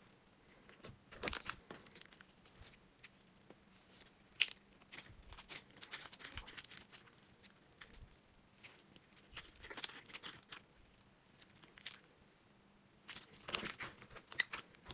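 Hands stretching and squeezing a thick slime whose microfoam balls have broken down: quiet, irregular sticky crackles and tearing sounds that come and go.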